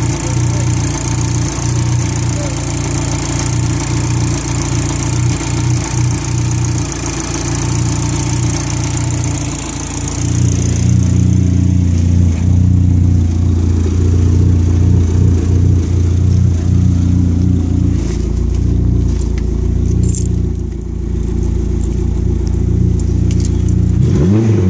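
A Dodge Neon SRT-4's turbocharged 2.4-litre four-cylinder idling steadily. For the first ten seconds a high hiss rides over the idle from the open engine bay. After that the idle drone is deeper and louder, and a short rising rev comes right at the end.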